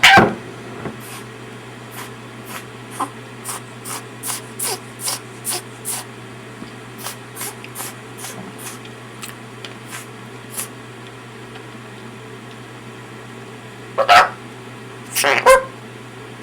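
Pet Patagonian conure calling: one harsh call at the start, then about ten seconds of quick light clicks, then two more harsh calls near the end, over a steady low hum.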